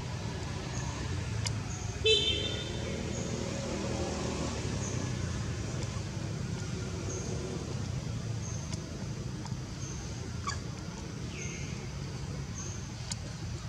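Steady low rumble of road traffic with a brief vehicle horn toot about two seconds in. A short high chirp repeats every second or so over the rumble.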